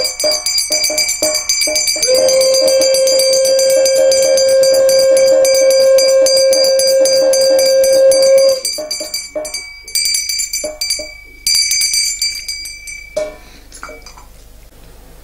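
A conch shell (shankha) is blown in a long steady blast while a hand bell is rung rapidly during the lamp offering (aarti). The conch stops about eight and a half seconds in. The bell keeps ringing in short spurts and stops near the end.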